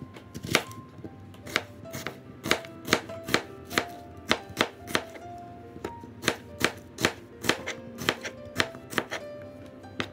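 A knife chopping onions into wedges on a plastic cutting board: a string of sharp knocks, roughly two a second, with a short pause about halfway through. Background music plays underneath.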